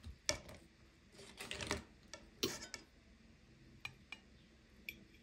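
Knife and fork knocking, scraping and clinking against a glass tray and a china plate as a slice of cake roll is cut and lifted across: a knock, a short scraping run, a louder knock about halfway, then a few light clinks near the end.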